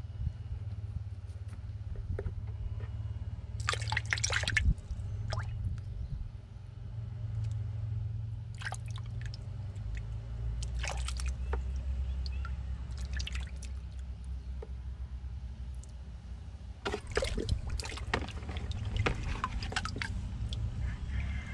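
Water sloshing, splashing and dripping in a plastic bucket as a clogged bilge pump is handled underwater and debris is picked out of it, with the dripping pump lifted out near the end. A steady low hum runs underneath.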